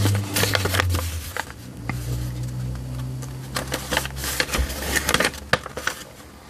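A folded paper instruction sheet being unfolded and handled, rustling and crinkling in quick, irregular crackles.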